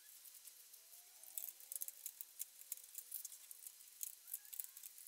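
Faint, scattered light clicks and rattles of hands handling parts around a Morris Mini's radiator, fitting the lower radiator hose and cowl.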